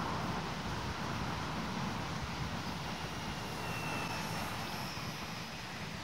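Wind buffeting the microphone, with the faint high whine of an RC biplane's electric motor and propeller coming in about halfway through.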